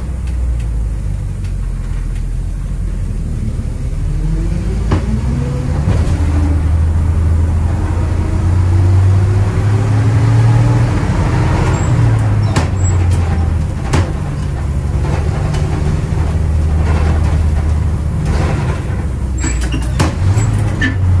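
The rear-mounted International Red Diamond 501 gasoline engine of a 1955 Gillig school bus, heard from the driver's seat, pulling the bus along under load. Its note climbs as the bus gathers speed, then drops about twelve seconds in at a shift of the five-speed manual gearbox, with a few knocks and rattles from the old body.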